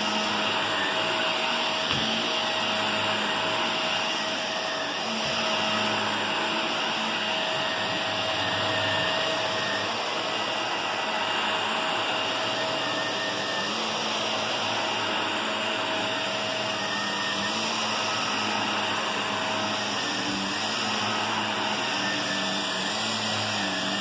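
Shark upright vacuum cleaner running steadily as it is pushed over carpet: a constant motor and airflow noise with a steady tone in it.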